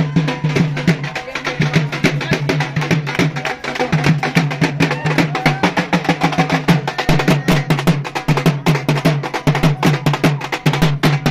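Music of fast, dense drumming: many sharp strokes a second over a deep, repeating drum beat.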